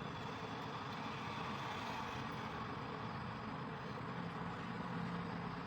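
Steady background noise with no distinct event, and a faint low hum joining about four seconds in.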